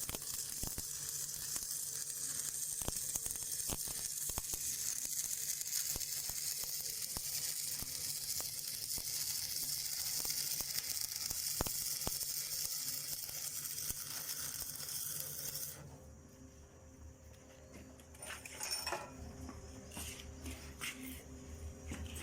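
Electric arc welding: the arc crackling and sizzling steadily as a bead is run, stopping suddenly about three-quarters of the way through. A few light clicks and knocks follow.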